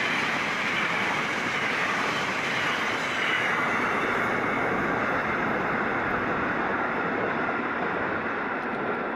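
Container freight train's wagons rolling past, then the wheel-on-rail noise carrying on steadily as the tail of the train draws away. A steady high ringing tone runs through it.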